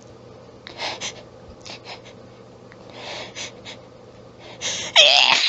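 A person's sniffs and short hitching in-breaths as a sneeze builds up, then a harsh, throaty sneeze bursting out near the end.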